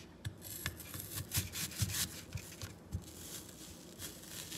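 A knife cutting an apple: short, irregular sawing and scraping strokes with light taps.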